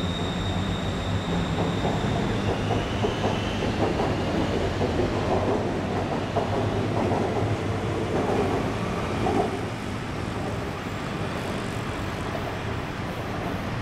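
Bangkok BTS Skytrain electric train moving off along the elevated track: wheels clattering on the rails, with a high whine that rises in pitch in the first few seconds. The train sound fades after about ten seconds, leaving a steady hum of road traffic.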